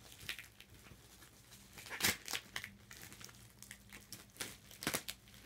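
Clear plastic wrapping around a CD crinkling as it is handled, in scattered crackles, the loudest about two seconds in and again near the end.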